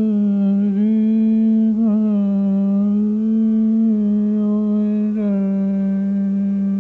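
A voice humming long held notes of a slow melody. It steps between a few nearby pitches, with a brief ornamental waver about two seconds in.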